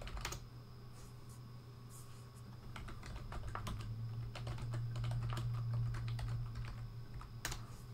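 Typing on a computer keyboard: irregular key clicks in quick runs, over a low steady hum that swells in the middle.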